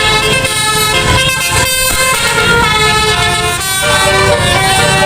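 Indonesian bus 'telolet' horn, a multi-trumpet musical air horn, playing a tune of held notes that change pitch every half second or so, over the bus's engine rumble.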